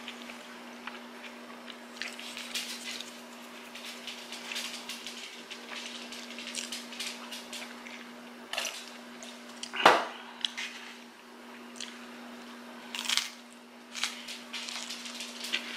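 Close-up eating and drinking sounds: sipping through a straw from a glass of ice, then biting and chewing a sandwich, with small wet mouth clicks throughout. A single sharp knock about ten seconds in is the loudest sound, over a steady low hum.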